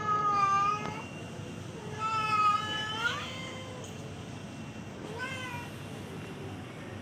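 Cat yowling in three drawn-out calls: the second is the loudest and rises in pitch at its end, and the third is short and faint. These are mating calls.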